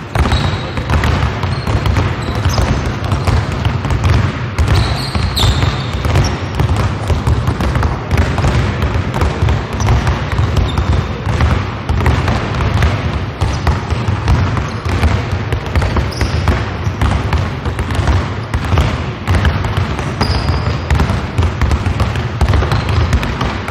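Several basketballs dribbled at once on a hardwood gym floor: a dense, continuous patter of overlapping bounces from players working two and three balls each in a passing drill.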